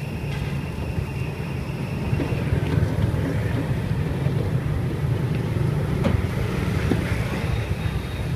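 Steady low rumble of wind on the microphone mixed with street traffic, with a few faint knocks as plastic containers are handled in the cart, about six and seven seconds in.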